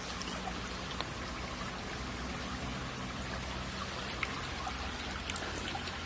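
Shallow river water running and trickling over rocks, a steady sound with a few faint clicks.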